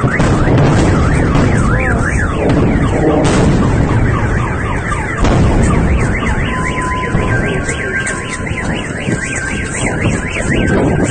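Shells going off in rapid succession: continuous rumbling booms, with sharper cracks about three and five seconds in. Several car alarms wail through it with warbling up-and-down tones, and steady alarm tones join past the middle.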